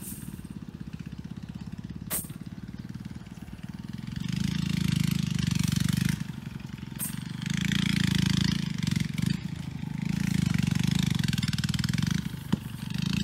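A small engine running with a rapid, even beat, swelling louder and softer several times from about four seconds in. Two sharp clicks cut across it.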